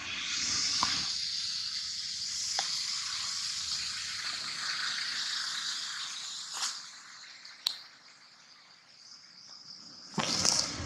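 Steady high-pitched buzzing of insects in the forest canopy, easing off in the second half, with a few sharp clicks and a brief loud noisy burst near the end.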